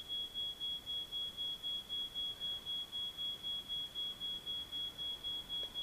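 A steady high-pitched electronic tone pulsing evenly about four times a second, like a rapid beeping.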